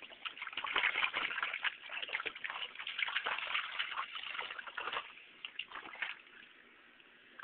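Water splashing and sloshing in a bowl as a wolfdog pup paws at it, in quick irregular splashes that thin out and stop about six seconds in.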